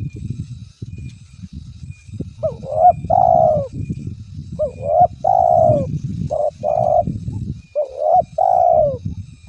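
Dove cooing in repeated phrases of rising-and-falling coos, starting about two seconds in, over a low rumbling noise.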